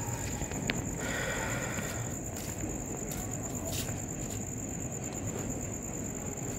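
Insects chirring: a steady high-pitched drone, over a low rumble.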